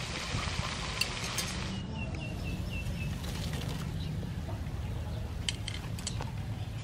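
A steady hiss that stops suddenly about two seconds in, then a small bird calling a quick run of about seven short, even chirps, with a few sharp clicks later on.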